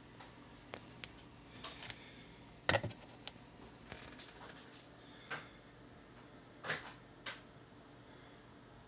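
Handling noise from test gear and the camera being moved: a series of light clicks and knocks, the loudest about three seconds in, over faint room hiss.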